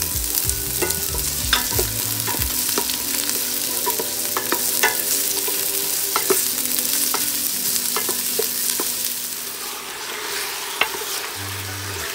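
Sliced onion, ginger and garlic sautéing in hot oil in a metal pot, sizzling steadily, while a wooden spoon stirs them and knocks lightly against the pot.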